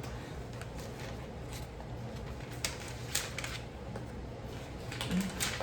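Soft rustling and a few light clicks of a cardboard box and its packaging being handled, over a steady low hum.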